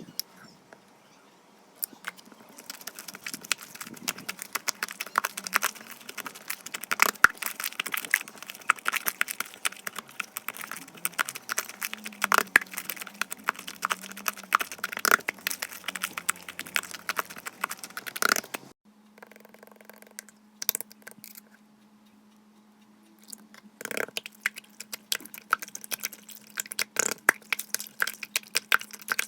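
Slime being squeezed and pressed by hand, giving dense, rapid clicking and crackling pops as air pockets burst. The clicking stops about two-thirds of the way through and starts again a few seconds later.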